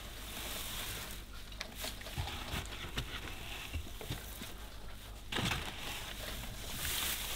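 Dry hay rustling and crackling as it is handled and gathered by hand, with scattered small clicks and a louder rustle about five seconds in.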